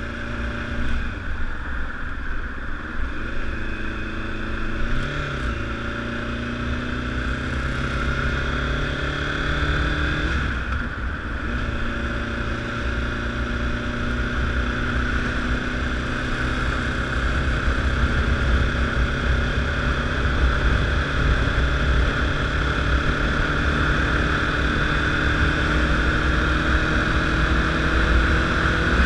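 Honda CBR1000RR sportbike's inline-four engine running on the move, with wind noise on the microphone. About ten seconds in there is a gear change, and then the engine pitch rises slowly as the bike gathers speed.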